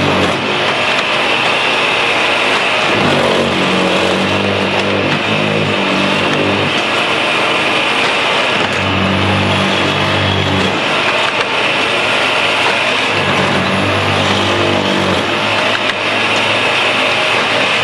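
Electromatic Tamper Mark II track tamping machine working: its engine and hydraulics run loudly and continuously, with a low engine note that swells and drops back in spells of a second or two.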